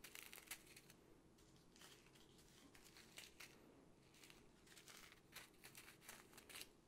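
Faint crinkling of small plastic zip-lock bags of diamond-painting drills being picked up, handled and set down, as short scattered crackles.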